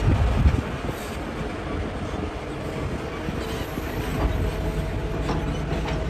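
Hitachi excavator working: its engine and hydraulics run steadily under load, with a few sharp knocks in the second half.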